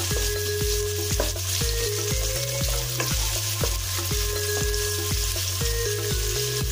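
Sliced onions sizzling in hot oil in a stainless steel pot while a wooden spoon stirs them, knocking against the pot about three times a second. Under it runs a low pulsing hum with held tones that change pitch in steps.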